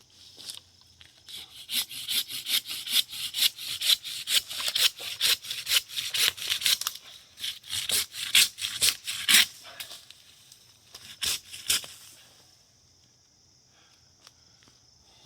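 Hand saw cutting through wood with quick, regular back-and-forth strokes; after a short pause come two last strokes, then the sawing stops.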